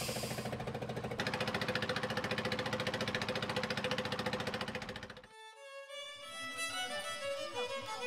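A small wooden boat's engine running steadily with a fast, even chugging pulse. About five seconds in it cuts off and slow background music with a bowed-string melody takes over.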